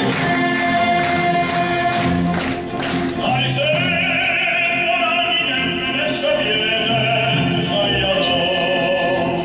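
Male singer performing live into a microphone over musical accompaniment. From about three seconds in he holds one long note with vibrato.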